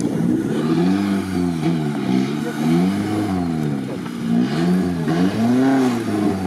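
Suzuki Samurai's engine, loud, revving up and falling back about once a second as the 4x4 works under load through a deep, water-filled mud bog.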